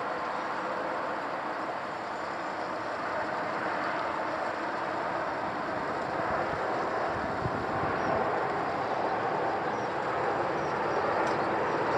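Boeing 747-400 jet airliner flying low overhead on approach to land, its four Rolls-Royce RB211 turbofans making a steady jet rumble that grows slowly louder as it nears.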